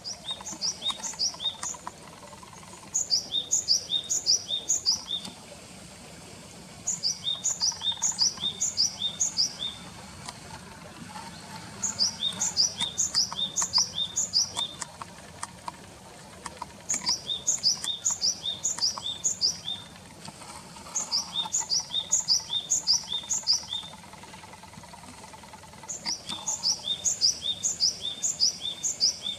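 Japanese tit singing, repeating a quick two-note 'tsupi tsupi' phrase in bursts of about 2.5 s, with pauses of about 2 s between them.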